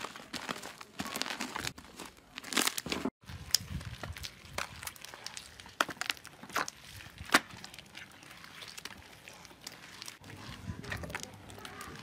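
Slime being stretched and squeezed by hand, making irregular sticky crackles, clicks and snaps. A thick red slime is pulled out of a bowl first; after a brief break about three seconds in, a foamy pink slime is squeezed and pulled in gloved hands.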